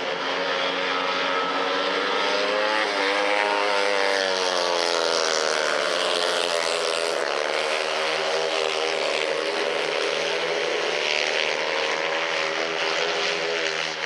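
Several speedway motorcycles racing together, their 500 cc single-cylinder methanol engines revving up and down as they go round the dirt oval.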